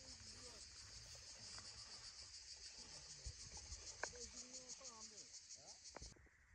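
Steady high-pitched insect trilling with a fast, even pulse, cutting off suddenly about six seconds in.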